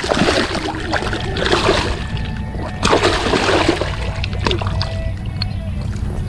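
Water splashing and churning in irregular surges as a hooked common carp thrashes at the surface while being played on a handline. A steady low rumble runs underneath.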